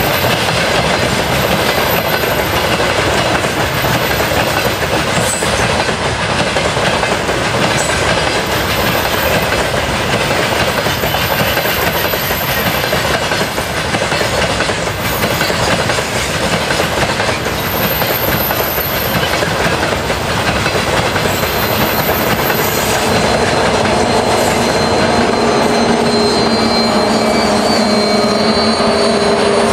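Loaded coal wagons rolling past, with the steady rumble and clatter of their wheels on the rails. In the last few seconds a steady engine drone from a 2TE116 twin-section diesel locomotive rises over the wheel noise as it draws near.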